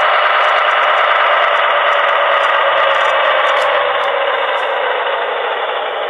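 Sound decoder in an HO-scale Alco RSD-15 model locomotive playing its diesel engine at full throttle through the model's small speaker, a steady, tinny engine drone. About four seconds in it starts to ease off a little lower and softer.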